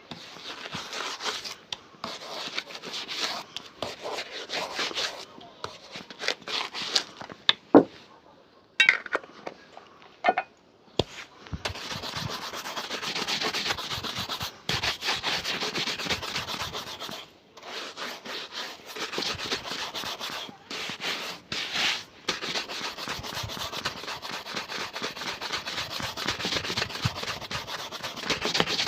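Rapid rubbing strokes on a shoe during a shoe shine, a dense scratchy swishing. A few sharp knocks and a short pause come about a third of the way in.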